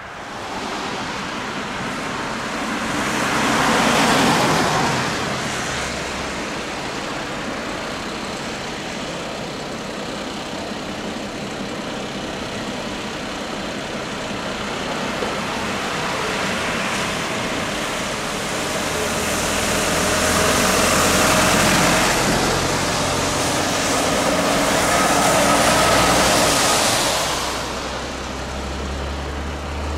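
Road traffic: cars pass by with tyre hiss on damp asphalt, swelling loudest about four seconds in and again twice in the second half. A MAN city bus, used by the fire brigade as a mass-casualty vehicle, rumbles at low engine speed as it pulls up near the end.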